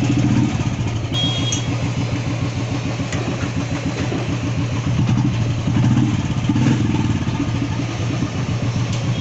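Royal Enfield Classic 350's single-cylinder UCE engine idling steadily with an even beat, the note swelling briefly about six seconds in. It runs without tappet clatter on newly fitted hydraulic tappets and oil pump.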